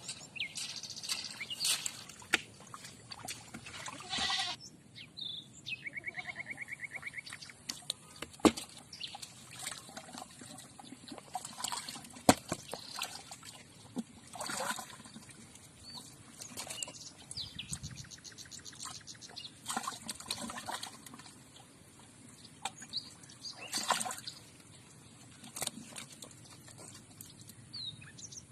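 Water splashing and pouring in irregular bursts, with occasional sharp clicks and knocks. A brief rapid high trill comes about six seconds in.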